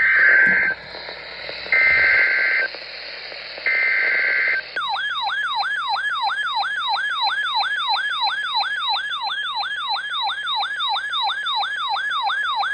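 NOAA Weather Radio EAS SAME header: three bursts of warbling data tones, each about a second long, carrying the river flood warning code. About five seconds in, a weather-radio alert tone starts: a siren-like sweep rising and falling about three times a second.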